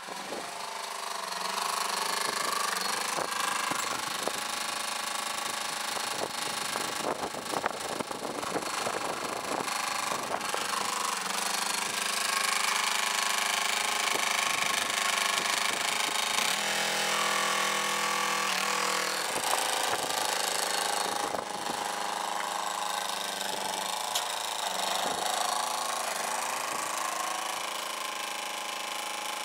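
Yanmar 155D tractor's small two-cylinder diesel engine running steadily as the tractor is driven, its pitch shifting now and then.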